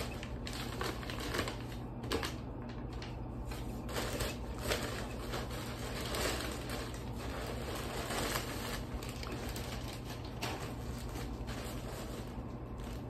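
A plastic mailer bag and tissue paper rustling and crinkling in irregular bursts as a package is opened and a garment pulled out of it.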